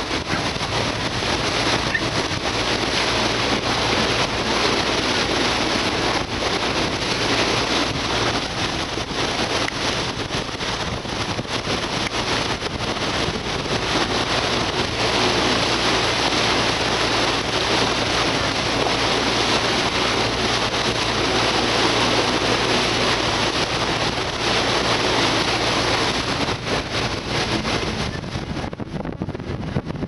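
Steady drone of a passenger motor ship's engine, with wind noise on the microphone and rushing seawater.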